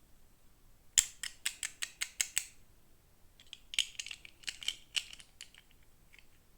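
Toy packaging being opened by hand: a quick, even run of sharp clicks, about six a second, then a looser cluster of clicks and rustling.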